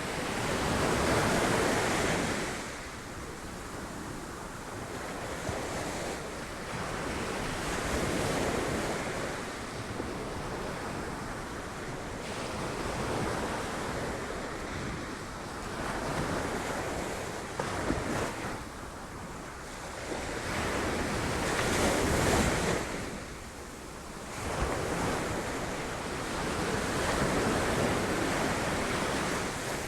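Sea waves breaking on rocks: repeated surges of surf that swell and fall back every several seconds, the loudest about a second in and again about two-thirds of the way through.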